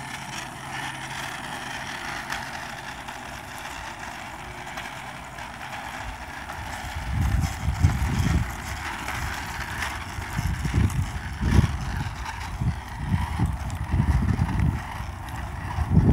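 Small wheels of caster boards and a hoverboard rolling on asphalt, a steady rough hiss. From about seven seconds in, wind buffets the microphone in irregular low gusts as the filmer rides along.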